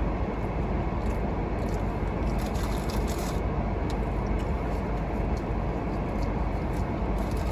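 Steady low rumble inside a car with its engine running, with a few faint, light clicks in the first half.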